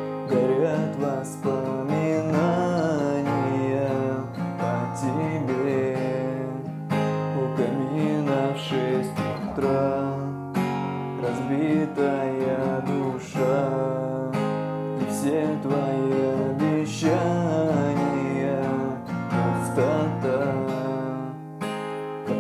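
Acoustic guitar strummed in steady chords, with a voice carrying a wordless sung melody over it; the playing softens near the end.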